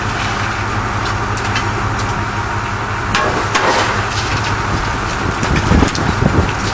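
Heavy diesel machinery running steadily at a scrapyard, with scattered metal clanks and knocks and clusters of louder crunching impacts about three and a half and six seconds in.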